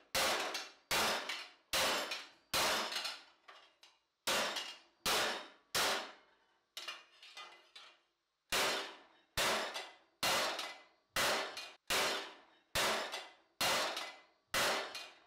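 Hand hammer beating a steel helmet plate over a stake held in a vise: sharp ringing metal clangs, a little under one per second, with a brief lull and a few lighter taps about halfway through.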